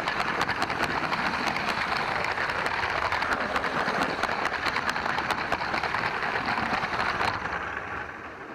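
Motorised LEGO train running on plastic track, heard close up from a camera riding on it: a dense rattle of wheels and motor, thick with rapid clicks. About seven seconds in the hiss cuts off and the rattle dies away as the train slows to a stop.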